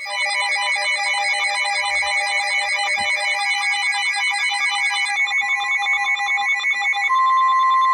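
Electronic emergency alert tones: a fast-pulsing, ringing trill of several pitches that changes character about five seconds in. Near the end a loud, steady single-pitch tone begins: the weather-radio warning alert tone that comes before the spoken warning.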